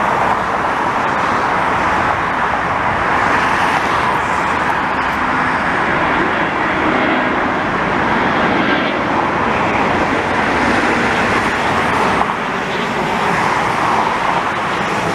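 Loud, steady jet roar of an airliner passing low overhead on its landing approach, dipping slightly about twelve seconds in.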